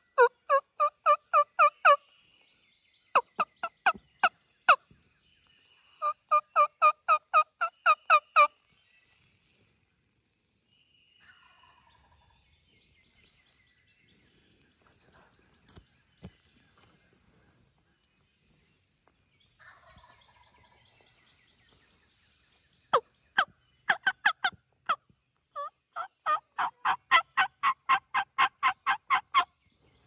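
Hen turkey yelping from a hunter's turkey call: bouts of quick, even notes at about four a second, three runs in the first eight seconds, then a long pause, then two more runs from about 23 seconds in.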